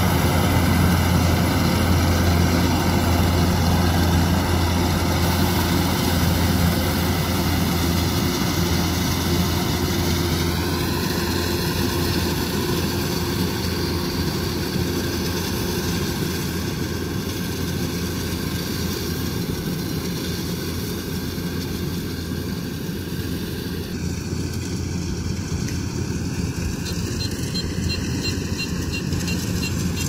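Kubota DC-105X combine harvester running while it cuts rice: a steady low engine and machinery drone that fades a little as the machine moves away.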